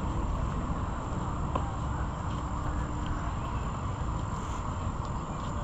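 Insects trilling steadily on one high pitch over a low, even outdoor rumble.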